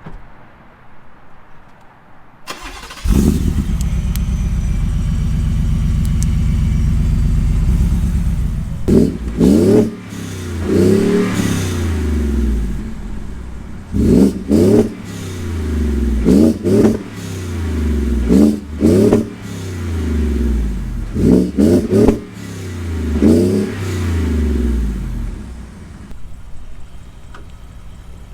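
Shelby Super Snake F-150's 5.0 V8 with long-tube headers and 3-inch exhaust comes in suddenly about three seconds in and runs steadily for a few seconds, then is revved again and again, each blip rising and falling back, about ten times.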